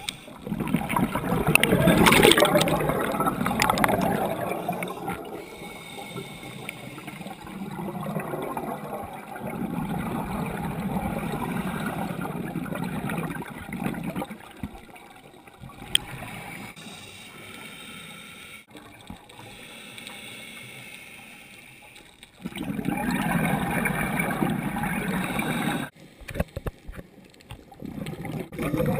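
Open-circuit scuba regulator breathing heard underwater: long gurgling rushes of exhaled bubbles come every several seconds, with quieter stretches between them.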